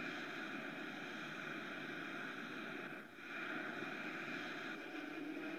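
Jet aircraft engine running steadily: a continuous rushing hiss with a faint steady whine, dipping briefly about three seconds in.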